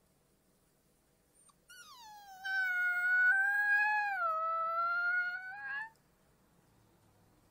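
Wolf pup howling: one long howl of about four seconds that starts high and slides down, then holds fairly level with a small dip and a slight rise at the end.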